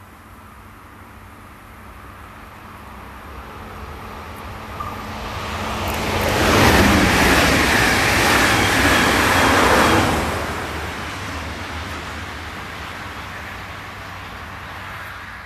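agilis ET 440 electric multiple unit passing at speed: the rush and rumble of its wheels on the rails grows slowly, is loudest for about four seconds in the middle as it goes by, then fades away.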